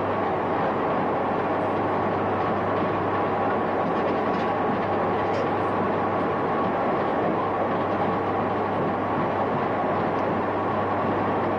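Steady, loud running noise of longwall coal-face machinery: a constant rushing din over a low steady hum, with no change in pace.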